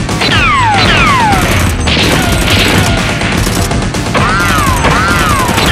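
Action-film soundtrack: background music under a dense crackle of dubbed rapid-gunfire sound effects. Repeated whistling tones fall in pitch, each about half a second long, with two rising-and-falling ones near the end.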